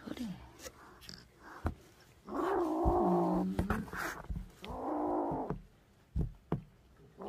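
Kitten under a month old yowling defensively at a hand reaching toward it, two harsh calls about two and five seconds in, the first ending on a lower, steadier note. A few short, sharp knocks fall between the calls.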